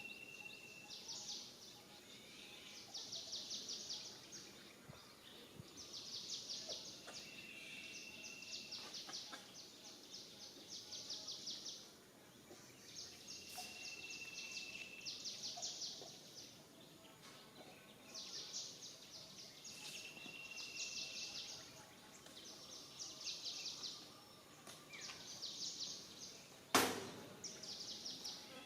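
Faint outdoor chirping: rapid high trills about a second long repeat every couple of seconds, with a short steady high whistle every few seconds, typical of wild birds calling. A single sharp click sounds near the end.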